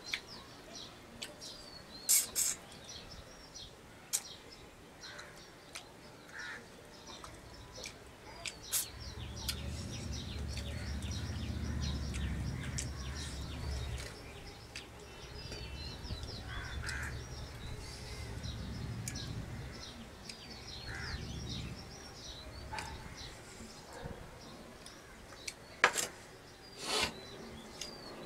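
Eating at a table: a hand working rice on a steel plate and chewing, with occasional sharp clicks, the loudest near the start and near the end. Birds call faintly throughout, and a low rumble swells for about twelve seconds in the middle.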